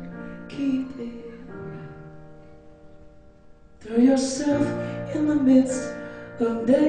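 A woman singing a slow song live to her own stage keyboard. Sung phrases come about half a second in and again from about four seconds in, with quieter held keyboard chords between them.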